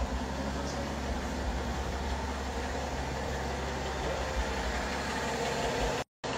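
Steady low rumble of a Rolls-Royce heard from inside the cabin, broken by a brief cut to silence about six seconds in.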